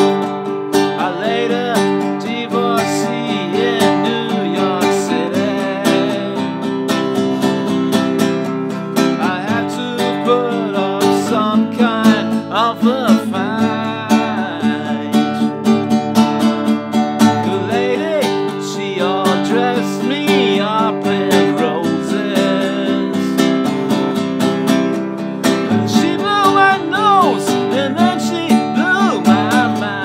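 Nylon-string classical guitar strummed steadily, with a man's voice singing along in stretches.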